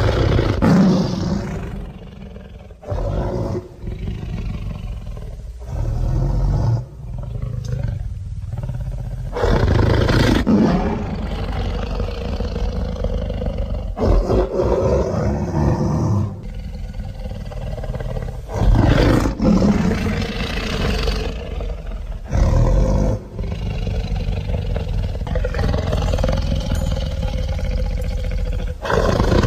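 Zhuchengtyrannus dinosaur roar sound effects: a run of deep, loud roars played one after another, each a second or a few seconds long and cutting in and out abruptly.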